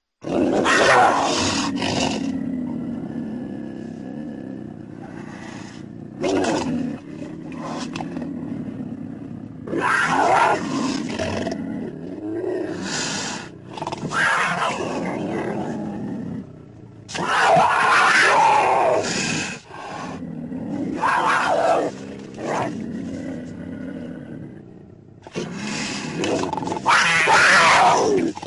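Dromaeosaurus dinosaur sound effects: a string of about nine roaring, screeching creature calls separated by short gaps, several sliding in pitch.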